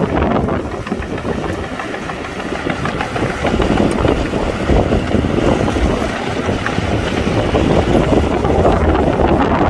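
Heavy earthmoving machine's diesel engine running, a dense, rough rumble.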